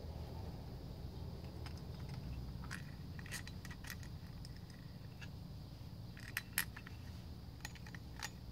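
Small metallic clicks and clinks of an Allen key working the hex screws out of a four-stroke trimmer engine's rocker cover: a short cluster about three seconds in, a sharper pair about six and a half seconds in, and a couple of single ticks near the end, over a low steady rumble.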